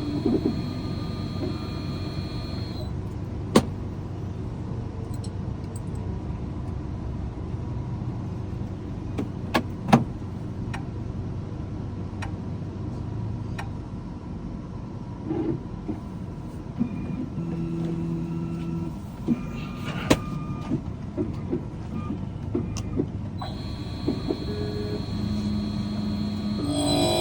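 A steady low rumble, like a vehicle running, with scattered sharp clicks and knocks and a few short low hums.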